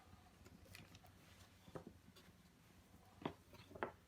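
Near silence with a low steady hum, broken by a few faint, short clicks: one a little under two seconds in and two more near the end.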